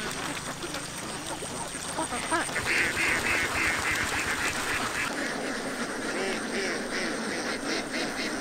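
A flock of domestic ducks quacking, with a rapid run of quacks, about four a second, starting about two and a half seconds in.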